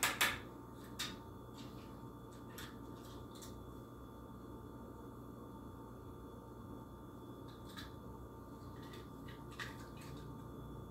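Quiet room tone with a few small clicks and taps from toy cars being handled: a knock just after the start as one is set down on a wooden table, then scattered faint clicks as the other is turned over in the hands.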